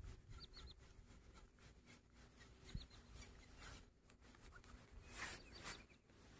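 Near silence with faint rustling and scraping, a little stronger about five seconds in.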